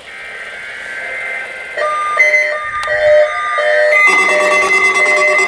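NOAA Weather Radio Required Weekly Test alert: the digital SAME header tones warble for about two seconds. Then weather radio receivers start sounding their alert beeps in a rapid on-off pattern. Near the end, more alarm tones join in and the sound thickens.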